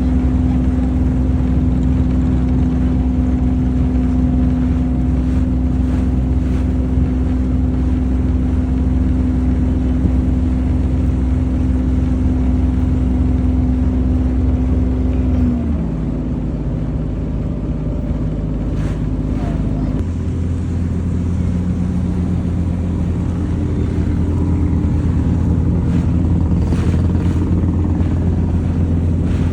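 A boat's engine running with a steady low drone. About halfway through, its note drops as the engine slows, and a few seconds later it settles into a different, steady low hum.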